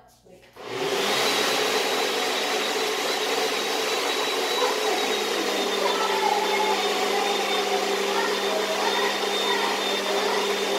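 High-speed countertop blender starting up about a second in and running steadily, grinding cookies into crumbs, with a thin high whine over the motor.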